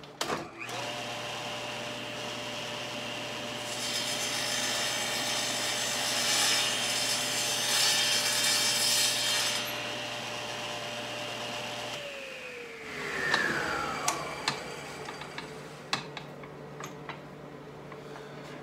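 Table saw motor started, running steadily as the blade cuts an angled crosscut through a strip of wood fed on the miter gauge, the noise rising for several seconds during the cut. The saw is then switched off and winds down with a falling whine, followed by a few light knocks as the wood is handled.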